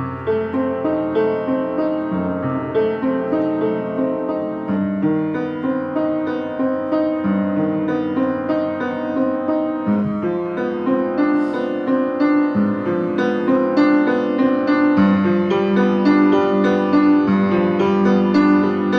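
Solo piano playing a flowing melody over chords, growing a little louder toward the end.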